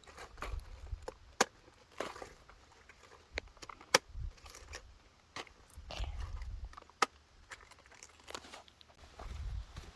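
Cabbage being harvested by hand: irregular sharp crunches and snaps as leaves break and heads are cut, with gusts of wind on the microphone.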